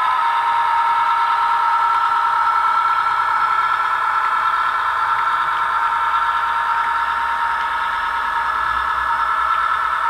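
Diesel engine sound of a class 158 DMU played by the digital sound decoder through the small speaker of a Bachmann OO-gauge model as the unit runs: a steady, thin engine drone with almost no bass. One of its tones fades out about eight seconds in.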